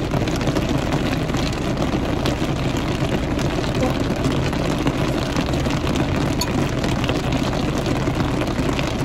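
Heavy rain falling on a car roof, heard from inside the cabin: a steady, dense patter of drops over a low hum.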